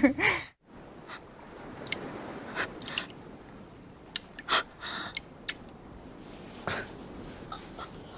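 Anime film soundtrack: short, scattered, choked sobbing breaths and sniffs from a character's voice, over a faint steady wash of sea waves.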